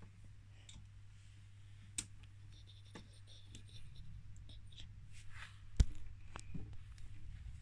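Dolls and a toy dollhouse being handled close to the microphone: small clicks and light scrapes, with a sharp knock about two seconds in and a louder knock near six seconds, followed by a few softer knocks.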